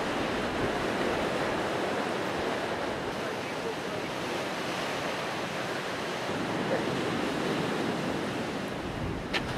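Ocean surf breaking on a rocky shore: a steady rushing wash of waves.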